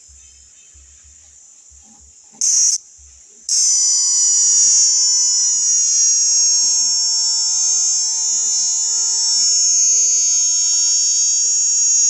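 Cicada calling: a faint, steady, high buzz, a short loud burst about two and a half seconds in, then from about three and a half seconds a loud, continuous, shrill buzz.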